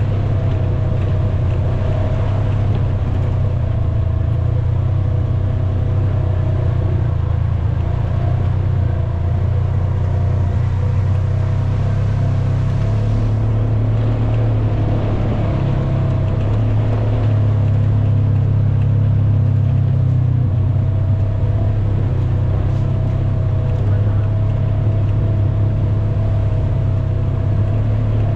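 ATV engine running at a steady pace, a constant low drone with a fainter higher whine over it, a little louder about twenty seconds in.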